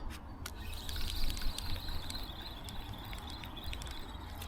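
Flowing river water with a steady low rumble, scattered faint ticks, and a faint high wavering note from about a second in until near the end.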